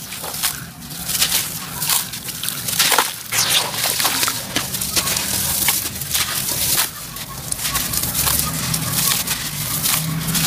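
Sand-cement chunks crumbled by hand into a basin of water: dense gritty crackling and crunching as the lumps break apart, with splashing and sloshing as the pieces drop into the water.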